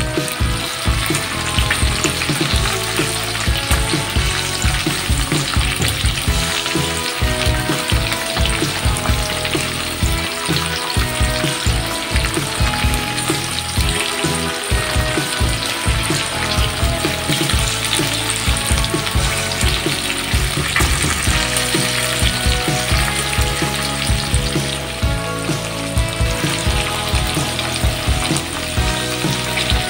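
Cut green beans frying in oil in a wok: a steady sizzle.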